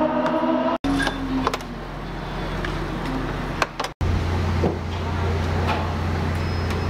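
Car engines running, heard as three short edited clips, each cut off abruptly, about a second in and again about four seconds in. The last clip holds a steady low engine drone.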